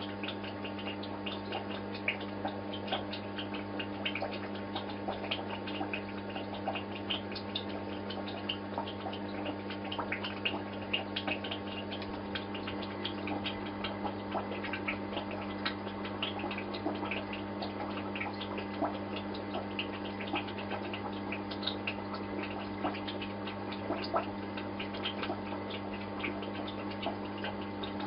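Aquarium pump or filter humming steadily, with water bubbling and trickling in many small, quick pops and drips.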